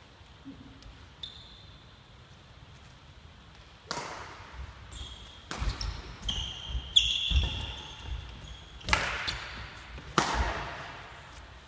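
Badminton rally: sharp cracks of rackets striking the shuttlecock, each echoing through the hall, mixed with sport shoes squeaking on the wooden floor and thuds of footfalls as the players lunge. The strikes start about four seconds in, with the last two close together near the end.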